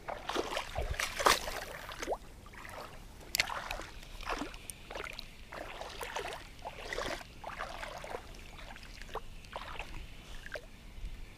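Shallow water sloshing and splashing around legs as a person wades, in irregular splashes about twice a second.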